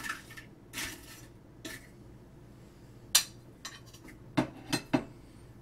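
A plate and cutlery clinking and scraping at a kitchen sink as leftovers are cleared off the plate: a few separate sharp clinks and short scrapes, spaced out over the seconds.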